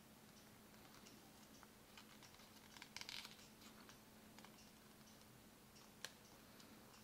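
Faint rustling and crinkling of folded paper being handled and creased, with a short cluster of crackles about three seconds in and one sharp click near the end, over a faint steady hum.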